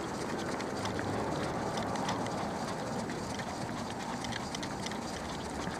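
Steady outdoor background noise, an even rush with faint scattered ticks, picked up by a camera moving along at a dog's level.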